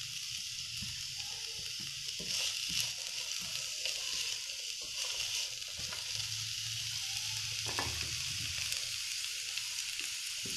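Chopped onion and green bell pepper sizzling steadily in hot cooking oil in a frying pan, stirred with a spoon that scrapes and clicks against the pan now and then.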